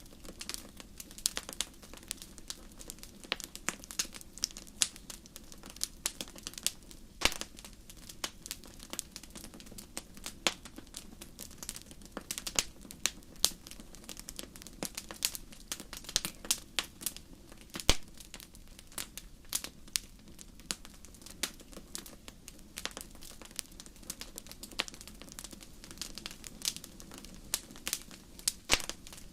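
Wood fire crackling: irregular sharp pops and snaps, several a second, over a soft steady hiss, with one louder pop about eighteen seconds in.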